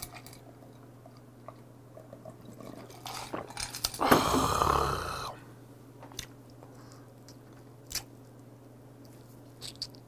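Close-up eating and drinking sounds: a sip of highball, then a loud breathy mouth noise lasting about a second, about four seconds in. After it come scattered small clicks of biting and chewing on a slipper lobster.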